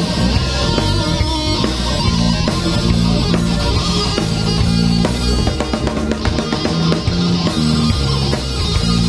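Live blues band playing an instrumental passage, with electric guitar leading over drums.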